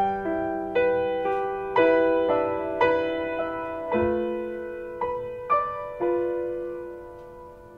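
Background music: slow, gentle solo piano, notes and chords struck about once a second and left to ring and fade, with a long held chord near the end.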